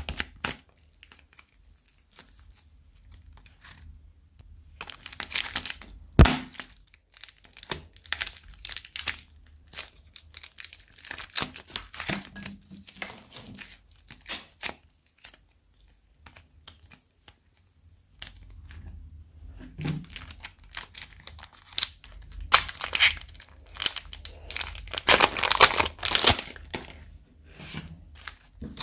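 Fluffy slime being pulled apart and pressed into shape by hand, with irregular sticky crackling and tearing sounds. A sharp click about six seconds in, and denser, louder crackling in the last few seconds.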